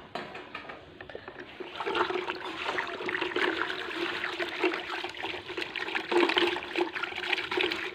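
Water sloshing and swirling in a plastic bucket as a hand stirs it, starting about two seconds in.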